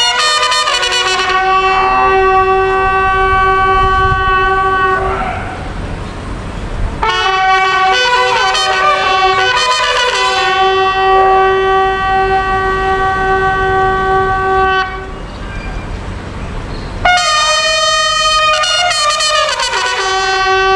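A border guard's long drawn-out parade command, a shout held on one note for several seconds at a time, three times over. Each of two of them slides down onto the held pitch.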